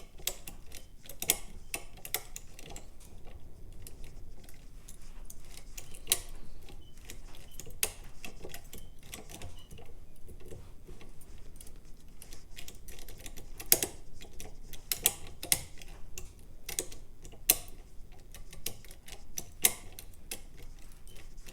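Metal clicks and light scraping from a modified key and over-lifter working inside a Union 5-lever curtain lock, lifting levers and applying tension. The clicks come irregularly, a few sharper than the rest, as the levers catch on false gates.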